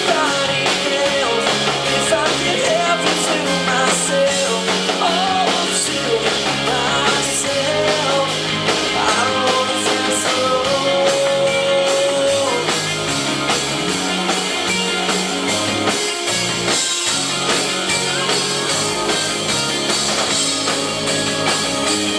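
Live pop-rock band playing a song: electric guitars, bass and drums with a melody line over them, loud and steady.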